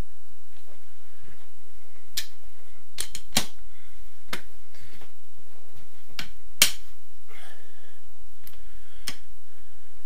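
Sharp metallic clinks and knocks of a steel socket, extension and breaker bar being fitted onto a large crankcase bolt. There are about eight separate hits, the loudest about six and a half seconds in.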